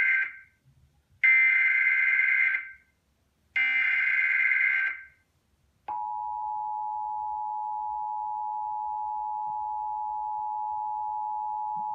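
Emergency Alert System data header: the end of one buzzy, screeching data burst, then two more, each about a second and a half long with short gaps between. About six seconds in, the steady two-tone EAS attention signal starts and holds. It announces a National Weather Service flash flood warning.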